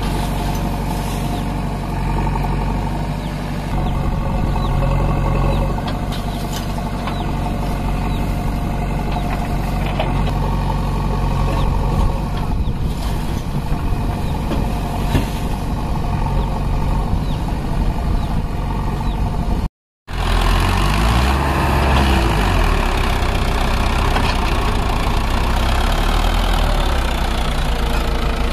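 Diesel engines of a JCB 3DX backhoe loader and a Mahindra Arjun tractor running steadily as the loader's bucket tips sand into the trolley, with a few short knocks. The sound cuts out for a moment about two-thirds of the way through, then the tractor engine revs as it pulls away with the load.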